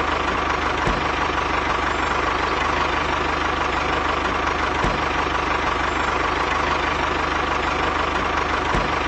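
A small engine running steadily at idle with a fast, even low pulse, with a few faint ticks spread through it.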